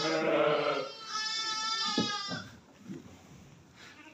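Goats or sheep bleating. Two long, steady bleats, the second ending about two and a half seconds in, then quieter.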